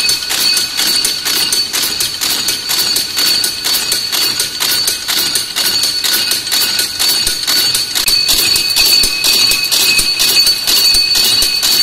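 Barbed wire making machine running: a fast, even clatter of about five or six clicks a second over a steady high whine.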